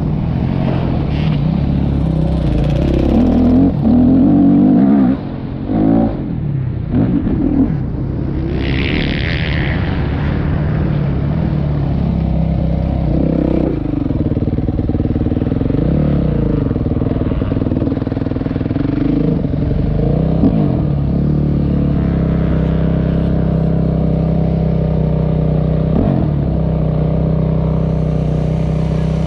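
Yamaha YZ dirt bike engine heard from the rider's helmet: revving up and easing off over the first several seconds, then running at low, fairly steady revs.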